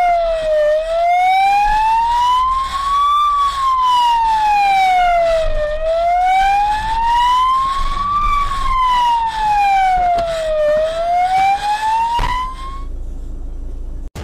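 Police car siren in a slow wail, rising and falling about every five seconds, with scattered knocks over it; it cuts off about 13 seconds in.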